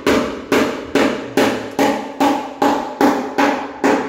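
Steady hammering: about ten evenly spaced blows, a little over two a second, each with a short ringing decay, stopping near the end.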